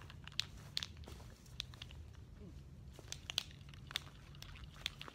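Footsteps crunching on dry ground, a scattered series of soft, irregular crunches over a low steady hum.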